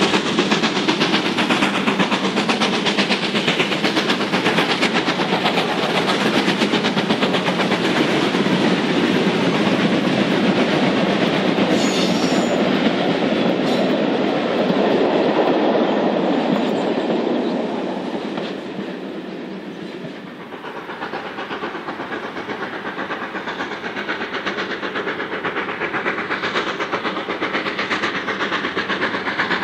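Two GWR Manor class steam locomotives double-heading a passenger train past at speed, their exhaust beating fast, then the coaches clattering by over the rail joints. About twenty seconds in this gives way to another steam-hauled train working toward the listener, slightly quieter.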